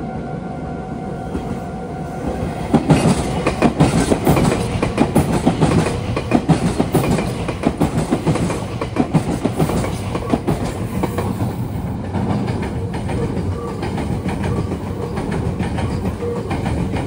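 Meitetsu electric train running through the Biwajima junction trackwork. A steady hum with a faint tone comes first, then about three seconds in the wheels start clattering rapidly over the rail joints and points. The clatter is loudest for the next several seconds, then settles into a steady rumble as the train keeps passing.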